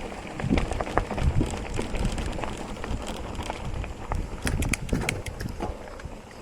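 Mountain bike ridden over a rough dirt trail: low rumbling thumps from the bumps and wind on the microphone, with scattered rattling clicks from the bike, thickest about four to five seconds in.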